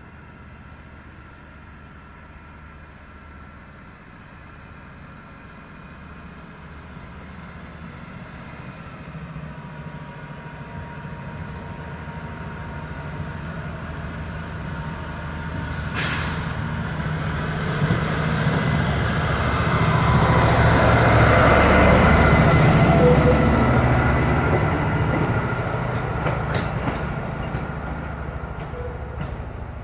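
Geismar VMT water jetter rail vehicle approaching and passing, its engine and wheels on the rails growing louder to a peak about two-thirds of the way through, then fading. A single sharp clank comes about halfway through.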